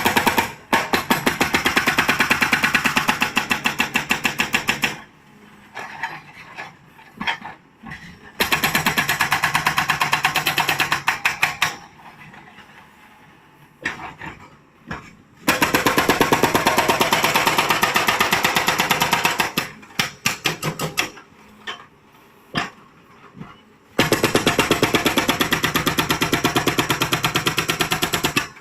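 Hydraulic rock breaker on a JCB 3CX backhoe loader hammering in rapid, even blows. The blows come in four long runs of several seconds, with short stuttering bursts in the pauses between.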